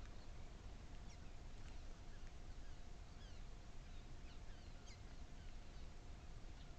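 Faint, scattered short falling chirps of small birds, over a low outdoor rumble and a faint steady tone.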